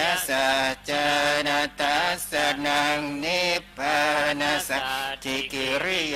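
Buddhist chanting in Pali: a sustained recitation held on a few steady pitches, phrase after phrase with short breaks for breath.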